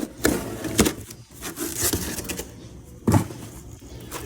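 Several short, sharp knocks and clicks, the loudest about three seconds in, with quieter gaps between.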